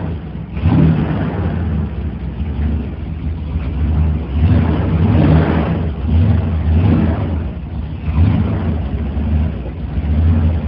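A 1967 Ford F100 pickup's engine runs and swells up and eases back several times as the truck moves under its own power for the first time. It is heard through a low-quality phone recording that cuts off the high end.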